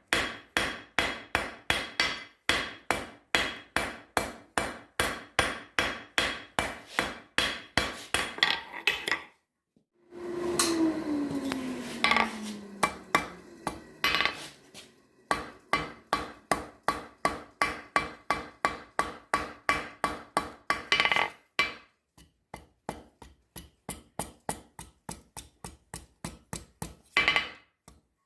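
Hand hammer striking hot steel on an anvil in a fast, steady rhythm of about four blows a second, with a ringing metallic tone. About nine seconds in the hammering stops and a falling hum sounds for a few seconds. Then the hammering resumes and turns to lighter blows near the end.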